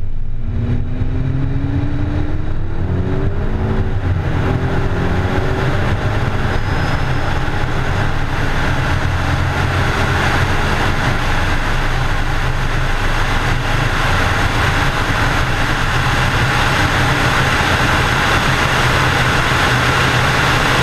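Volkswagen GTI's turbocharged 2.0 TSI engine launching hard and accelerating through the gears, its pitch climbing in steps over the first few seconds. A loud wind rush then builds over a steady engine drone as speed rises, heard from a camera mounted on the car's side.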